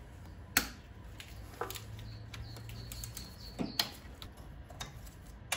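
A few scattered, sharp metallic clicks of a wrench working a 13 mm bolt loose on the AC compressor mount, with a faint short hum about two seconds in.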